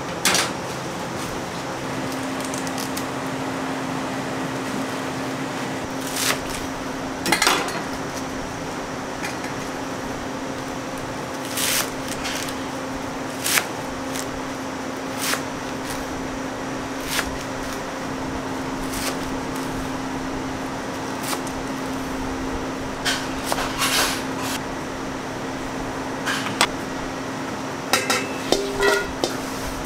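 Kitchen knife cutting through a bundle of thin green stalks on a cutting board, the blade knocking on the board a dozen or so times at uneven intervals, with a small cluster of knocks near the end. A steady low hum runs underneath.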